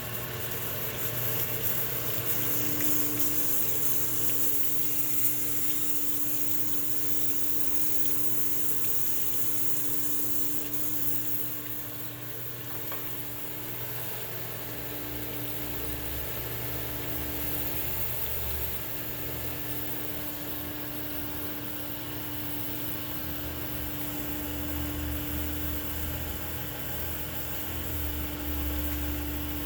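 Winona Van Norman CG-280 crankshaft grinder running and grinding a crankshaft: a steady hiss over the hum of its motors, with a low rumble that comes and goes in the second half.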